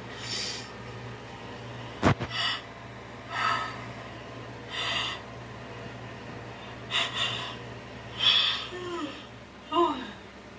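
A person breathing out hard through the mouth in about six short, separate huffs. There is a sharp tap about two seconds in and a brief voiced sound near the end.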